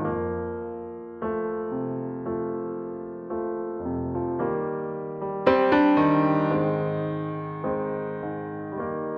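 Slow solo piano music: chords struck about once a second and left to fade, with a louder chord about five and a half seconds in.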